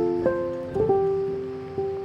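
Background music: a melodic instrumental with single notes that start sharply and fade away, a few each second.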